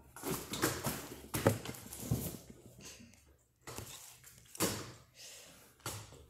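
Irregular knocks and thumps with rustling, from a child working on a metal home gymnastics bar and stepping on the floor; the loudest knocks come about a second and a half in and again past four and a half seconds.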